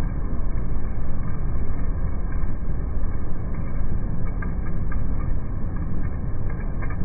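A steady, muffled low rumbling noise with a few faint ticks in the second half.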